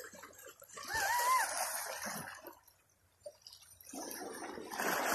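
Sea waves washing in over shoreline rocks, surging twice with a lull between. A short, high, wavering call sounds about a second in.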